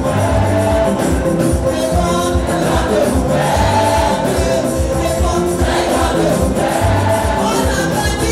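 Gospel praise music with a choir singing over a driving band with a steady bass beat.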